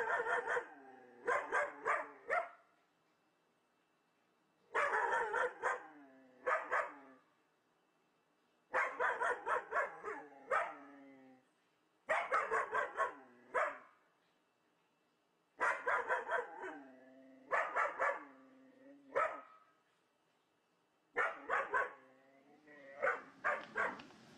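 A dog barking in repeated bouts of a few sharp barks each, about every three to four seconds, some barks trailing off with a falling pitch.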